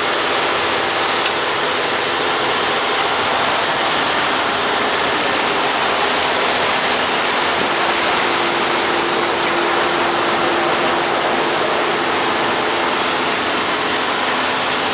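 Steady loud rush of a riverboat's churning wake, with the constant hum of the boat's engine underneath.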